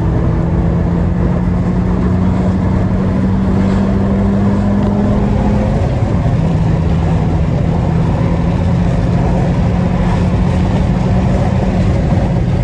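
Peugeot 208 GT's 1.6 THP turbocharged engine pulling steadily under way, its note slowly rising for about six seconds, then dropping a step and holding steady, with road and wind noise underneath.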